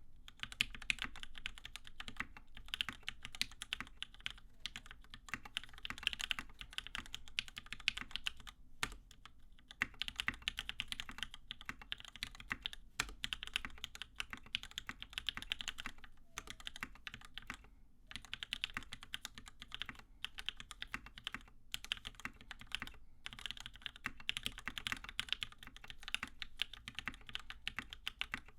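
Custom mechanical keyboard with lubed Gateron Hippo linear switches on 70g springs, PBT keycaps and an aluminium top-mount plate, typed on fast and continuously, a dense run of keystrokes broken by a few short pauses.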